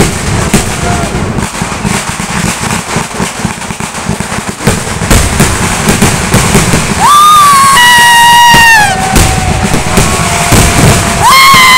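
An aerial fireworks display going off in rapid succession, a dense run of cracks and bangs. Two long high whistles, each dropping slightly in pitch at its end, sound in the second half.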